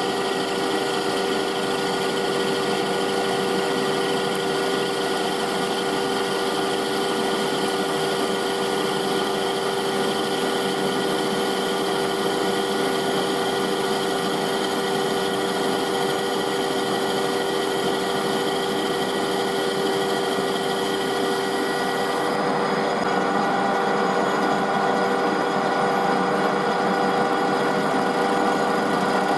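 Metal lathe running steadily, its motor and gearing holding several steady tones, as a turning tool cuts down a cast scrap bar and throws off chips. The higher hiss drops away about three-quarters of the way through.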